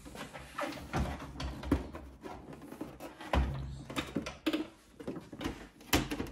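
Irregular plastic knocks, clicks and rubbing, with a couple of heavier thumps, as the casing of a Melitta CI Touch fully automatic coffee machine is handled and shifted on a workbench.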